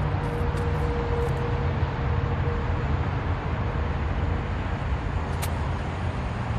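Steady low vehicle rumble with a faint steady hum, and a single sharp click about five and a half seconds in.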